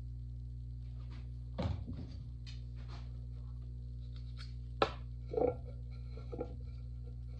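A few knocks and light clicks from pottery tools being handled and set down around a potter's wheel, the sharpest a click about five seconds in, over a steady low hum.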